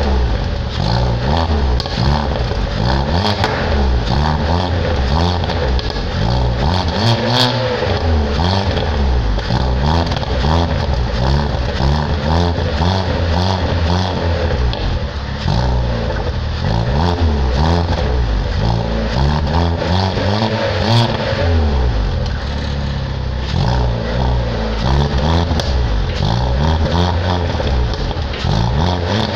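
Peugeot 206 exhaust at the tailpipe as the engine is revved up and down over and over, with sharp backfire pops scattered among the revs.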